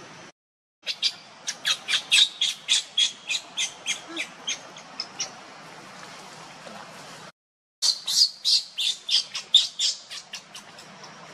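Baby macaque squealing in two runs of rapid, high-pitched squeaks, about three a second, each run a few seconds long. The sound drops out briefly twice where the footage is cut.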